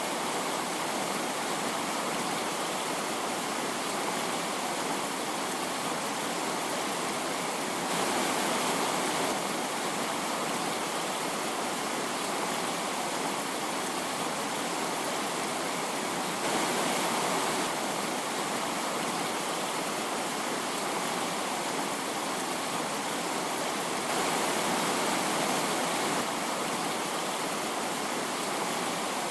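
Steady rushing hiss with no tones or voice, briefly a little louder three times.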